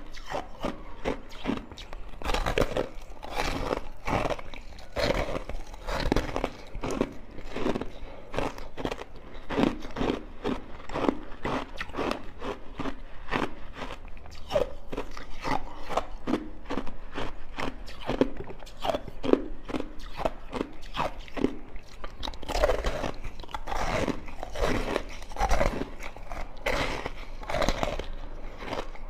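Frozen passion fruit ice being bitten and chewed: dense, irregular crunching.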